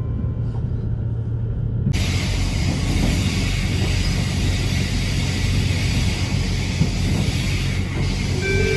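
Train running noise heard inside a passenger car: a steady low rumble that turns suddenly louder and fuller about two seconds in. Near the end the notes of the onboard announcement chime begin.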